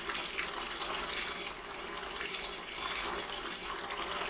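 Stand mixer running and churning cream that has just broken into butter, with the separated buttermilk sloshing and splashing around the bowl.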